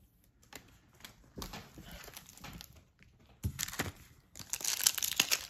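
Soft rustles of trading cards being handled. From about three and a half seconds in come a couple of light knocks, then dense crinkling of a foil trading-card pack wrapper, loudest near the end.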